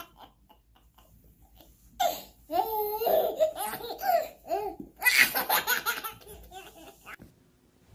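Baby belly-laughing in high-pitched bursts: quiet breathy catches at first, then a long run of laughter from about two seconds in, and another near the middle that fades out toward the end.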